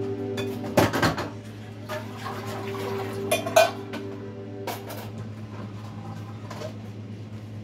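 Dishes and cutlery clinking and clattering in a kitchen sink as they are washed by hand, with the loudest clatters about a second in and about three and a half seconds in.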